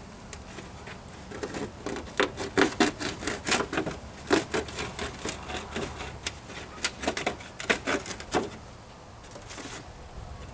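Wood being handled and worked: a quick, irregular run of knocks and scrapes from about a second in, easing off to quieter handling noise near the end.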